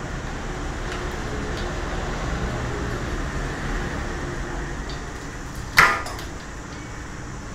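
Handling of a Weifeng WT-3520 aluminium tripod over a steady background hum, with one sharp clack from the tripod's legs about six seconds in.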